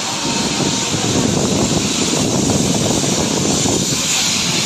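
Steady running noise of a train heard from on board: wheels rumbling and rattling on the rails, with rushing air.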